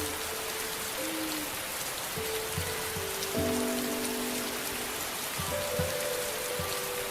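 Steady rain falling, with soft, slow held music notes under it.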